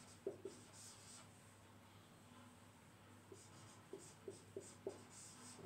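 Marker pen writing on a whiteboard: faint strokes and light taps of the tip, a short run near the start, a quiet pause, then a quicker run of strokes in the second half.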